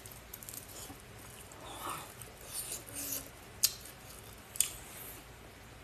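Close-miked eating sounds: wet, crackly chewing of food, with two sharp clicks about a second apart past the middle.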